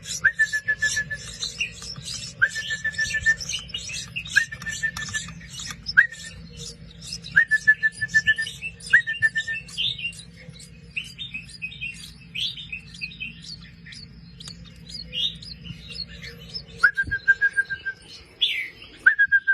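Young wild birds chirping rapidly and continuously, the begging calls of chicks being hand-fed, with a clear steady whistle-like note repeated several times, mostly in the first half and twice more near the end.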